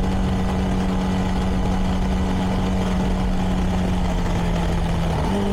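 CFMoto 300NK's single-cylinder engine running through its stock exhaust at a steady cruise, heard from the rider's helmet, with low road and wind rumble underneath. The engine note eases down slightly, then rises again near the end.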